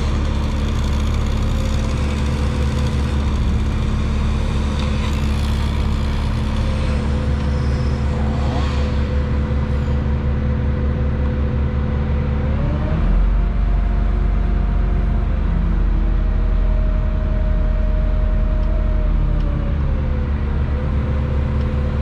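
Crane's diesel engine running steadily, heard from inside the operator's cab. About halfway through it speeds up and gets louder as the crane lifts a cut section of trunk, then drops back to a lower speed near the end.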